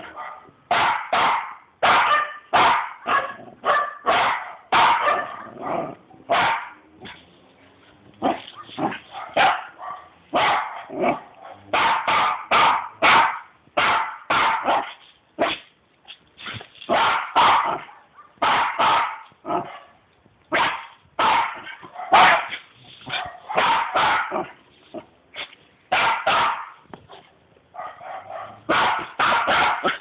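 West Highland white terrier barking over and over in quick runs of sharp barks, with short pauses between the runs.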